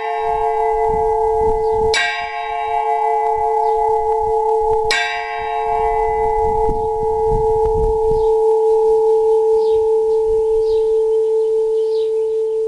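Orthodox monastery bells rung as a requiem (funeral) peal: bells struck together about two and five seconds in, over the deep hum of a large bell. The large bell then rings on alone, its hum steady and slowly pulsing.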